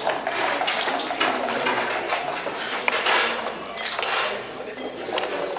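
Backgammon play at the board: a quick run of hard clicks and clacks as checkers are moved on the board and dice are rattled.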